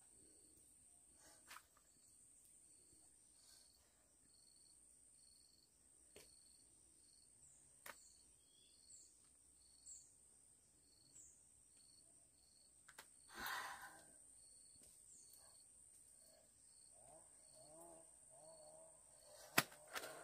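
Quiet outdoor ambience with a steady high-pitched hum and a faint chirp repeating about twice a second. Peeled bamboo shoots are handled in a metal pot and laid on leaves, giving a few soft knocks and a louder rustle about halfway through. Faint wavering animal calls come in near the end.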